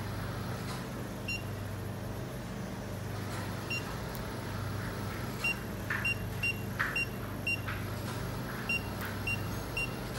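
Short, high electronic key beeps from the Juki LK-1900B bartacker's operation panel as its buttons are pressed, about eleven in all, several in quick succession around the middle, with a few soft taps, over a steady low hum.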